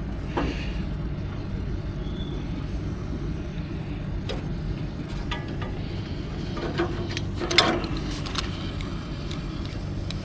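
Brazing torch flame burning steadily as it heats a compressor's brazed suction-pipe joint to melt the braze, with a few short metallic knocks from the pipe being worked, the loudest about two thirds of the way in.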